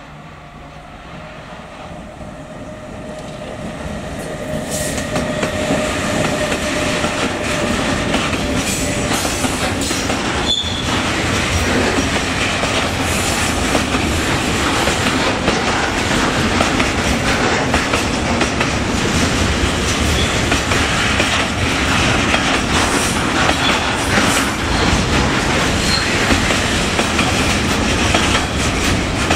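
Freight train approaching and passing close by, wheels clattering over the rails. It grows louder over the first five seconds, then stays loud and steady.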